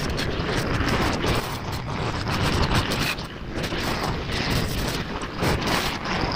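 Brush cutter running and cutting grass, a steady dense rattling noise with irregular ticks.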